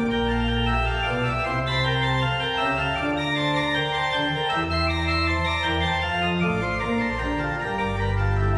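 Church organ playing sustained chords over low bass notes that the organist plays with the feet on the pedalboard, the bass note changing every second or so.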